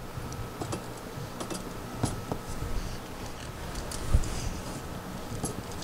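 Faint, irregular light metallic ticks and clicks as the threaded rod of a Raco ceiling fan brace bar is turned by hand, screwing it shorter.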